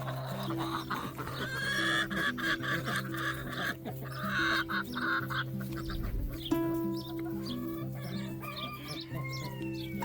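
Chickens clucking over background music with held low notes.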